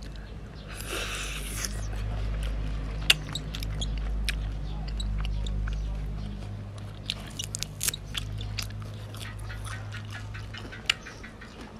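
Close-up mukbang eating sounds: raw shrimp in chili sauce taken into the mouth and chewed with many wet clicks and smacks, then fresh herb leaves chewed. There is a short breathy slurp about a second in.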